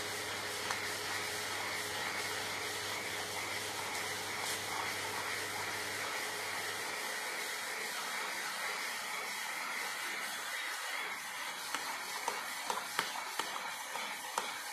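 Vacuum cleaner running steadily. A few sharp knocks come in the last few seconds.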